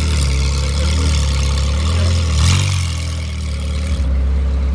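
Mid-engined Ferrari V8 idling steadily close by, with a brief slight rise in revs about two and a half seconds in.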